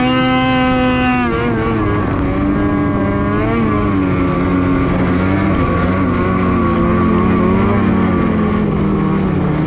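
Polaris Switchback Assault 850 snowmobile's two-stroke twin engine running under the rider. Its pitch is held high at the start, drops after about a second, climbs briefly again about three seconds in, then runs steady.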